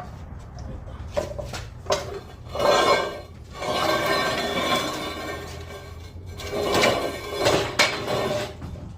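Metal tools and parts clinking and clattering as they are handled and moved aside: a few sharp clicks, then several longer runs of clatter, over a steady low hum.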